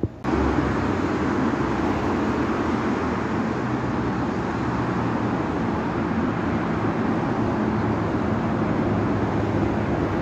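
Steady road-traffic rumble of cars and a city bus on a street beneath an elevated expressway, starting abruptly.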